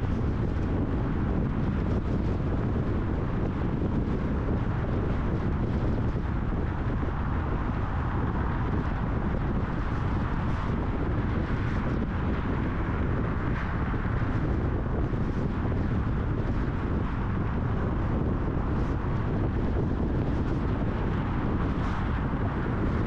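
Steady road and wind noise from a car driving on a highway, with wind buffeting the microphone.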